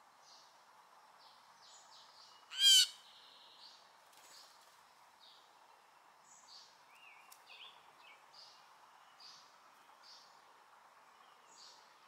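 Blue jay giving one loud, harsh call about two and a half seconds in, over faint scattered chirps of other small birds.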